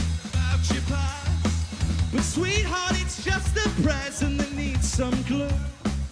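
Live indie rock band playing: a male lead vocal sung over electric guitar, bass and a steady drum beat.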